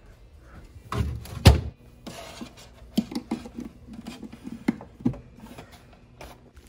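Refrigerator closing with two thuds about a second in, the second the louder. Then a run of light clicks and knocks as a plug is pushed into a wall outlet.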